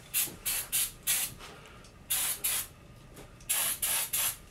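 Aerosol can of brake cleaner hissing in about nine short bursts, in three quick clusters, as it is sprayed onto an engine crankshaft to clean it before the main bearings' clearances are checked.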